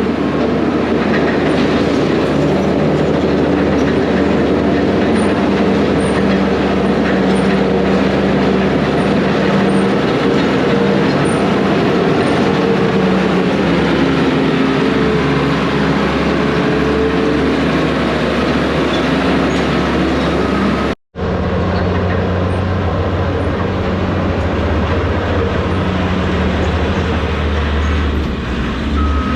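Crawler dozer working: its diesel engine running steadily under the clatter of steel tracks. The sound cuts out for an instant about two-thirds of the way through, then the engine carries on at a slightly different pitch.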